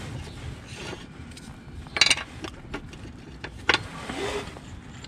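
Metal washers and parts clicking and knocking against a steel mounting plate as they are handled and set down, two sharper knocks about two seconds in and near the four-second mark, over a low steady rumble.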